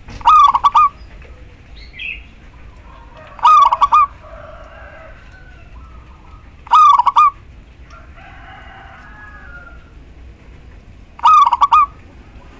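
Zebra dove calling: four short, stuttering coo phrases a few seconds apart, each about half a second long. The recording is presented as a female calling to males.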